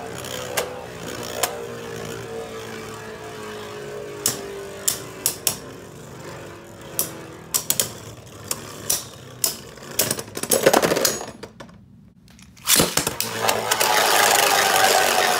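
Two Beyblade Burst tops, Victory Valkyrie and Dark Deathscyther, spinning in a plastic stadium: a steady whir that slowly drops in pitch as they lose speed, with sharp clicks as they collide. About eleven seconds in the sound falls almost silent for a moment. It then starts again suddenly, louder and higher-pitched.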